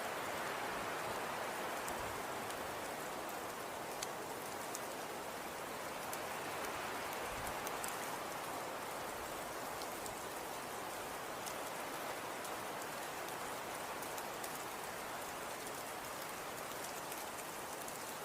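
Snowstorm ambience: a steady hiss of wind with faint scattered ticks.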